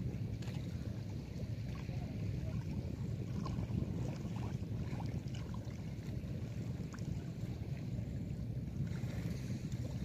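Steady low wind rumble buffeting the microphone, with faint scattered splashes of river water.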